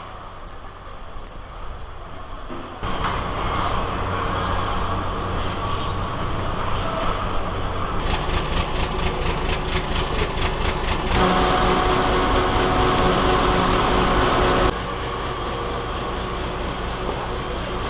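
Vehicle engines and machinery running during fish unloading work, a steady mechanical drone with a rapid, even clatter in the middle. The sound jumps abruptly louder about three seconds in and drops back near the end.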